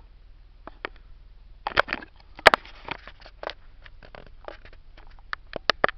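A mail package being handled and opened by hand: a run of irregular crackles, clicks and rustles, the loudest about two and a half seconds in.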